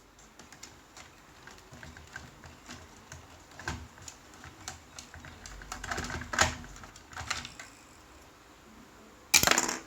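Scattered light clicks and taps of small toy cars being handled, with a louder clatter near the end.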